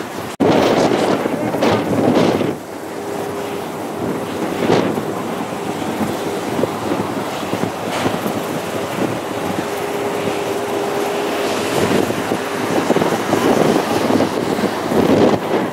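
Wind buffeting the microphone over the steady rumble of airliner noise. A brief dropout comes about half a second in. From about two and a half seconds a quieter, even rush carries a faint steady hum.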